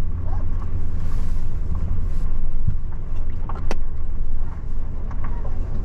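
GMC pickup carrying a pop-up truck camper driving slowly over a rocky, washboarded dirt road: steady low engine and road rumble with a few sharp knocks, the loudest about three and a half seconds in.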